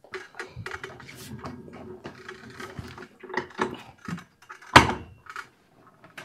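A wheeled metal cart carrying a milling machine rolling across the floor: casters rumbling, with rattles and scattered knocks, and one sharp loud knock a little before the end.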